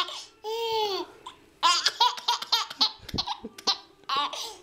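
Baby laughing hard: one long drawn-out squeal of laughter, then runs of quick, breathy belly laughs.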